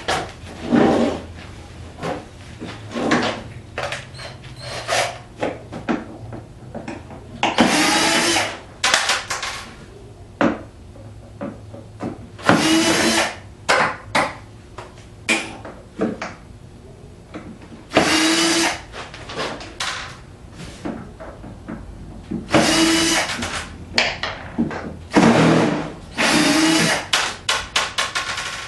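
Cordless drill/driver backing screws out of a dehumidifier's casing, its motor whining in repeated runs of about a second, with clicks and rattles of screws and plastic parts between the runs.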